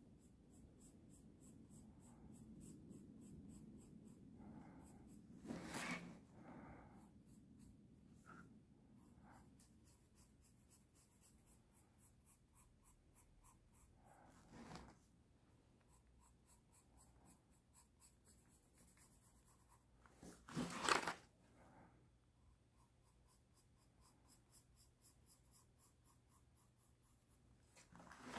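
Faint sketching strokes of a drawing tool on a surface, short quick strokes at about two to three a second, with two louder rubbing sounds about six seconds in and about twenty-one seconds in.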